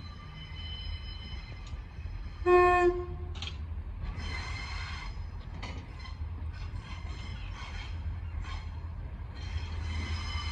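Class 142 Pacer diesel railbus approaching at low speed, with a steady low engine rumble and a thin high squeal from the wheels. One short single-note horn blast about two and a half seconds in is the loudest sound.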